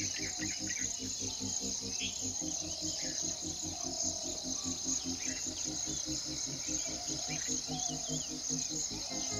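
Steady high-pitched insect chorus with a few short bird chirps over it, and a low, evenly repeating pulse underneath.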